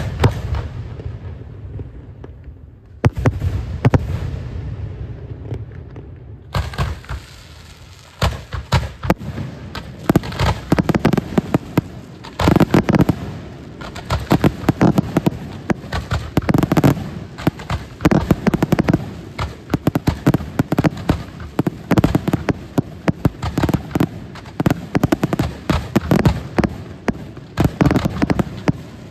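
Fireworks going off: a few separate loud bangs in the first few seconds, then from about six and a half seconds in a dense, rapid barrage of sharp bangs that keeps on without a break.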